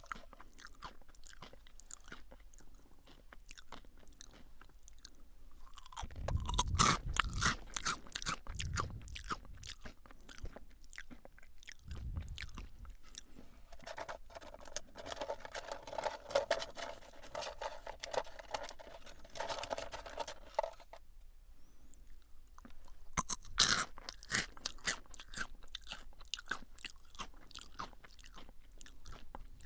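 Close-up crunching and chewing of Calbee Jagabee lightly salted potato sticks: a run of dry crackles, with louder crunchy bites about six seconds in and again about twenty-three seconds in.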